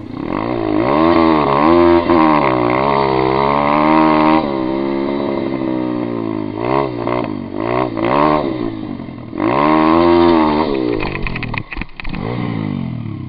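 A pit bike's small single-cylinder engine revving up and down again and again as the rider works the throttle off-road. Near the end the engine note breaks off into a few clattering knocks as the bike goes down in the dirt.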